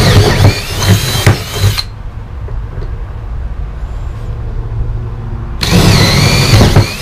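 Cordless drill boring through the holes of a steel mounting plate into an OSB trailer floor, its whine rising and falling in pitch. One run of about two seconds, a pause, then a second run starting near the end.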